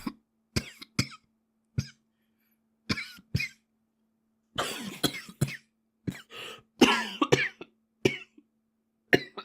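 A boy coughing over and over: single short coughs at first, then a longer run of coughs in the middle, then more short coughs near the end. A faint steady hum runs underneath.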